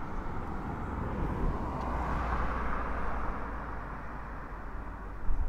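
Airbus A380's four jet engines heard from far off on landing approach: a steady, noisy roar that swells a little about two seconds in and then eases, with wind rumbling on the microphone.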